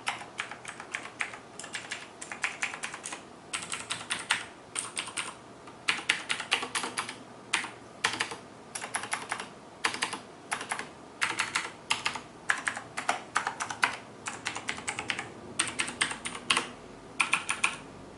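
Fast typing on a Razer BlackWidow mechanical keyboard with clicky switches: quick runs of sharp key clicks broken by short pauses.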